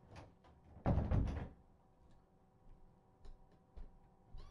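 A door shutting with a single thud about a second in, followed by a few faint clicks. A kitten starts to meow at the very end.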